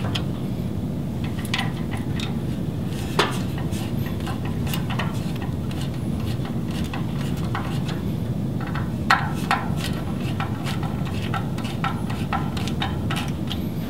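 Hand screwdriver driving down the screws of a metal swivel bracket and grommet kit: scattered small clicks and metallic taps, the sharpest about three seconds in and twice around nine seconds in, over a steady low hum.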